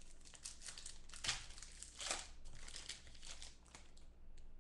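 A sports card pack wrapper crinkling and tearing as it is opened by hand, in a series of irregular rustles with the sharpest about one and two seconds in.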